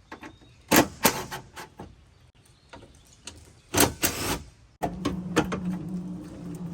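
Sharp metal clanks and rattles from a car door window regulator being worked loose inside the door, then about five seconds in a small electric motor starts and runs with a steady hum.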